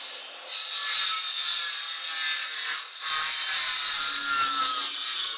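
Circular saw cutting across the end of a wooden boat plank, bucking off the tail end. The saw gets louder about half a second in as the blade bites into the wood, then runs steadily through the cut, its pitch sagging slightly under load.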